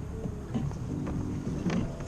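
Music playing, with held notes over a low, steady rumble of noise and a few faint clicks.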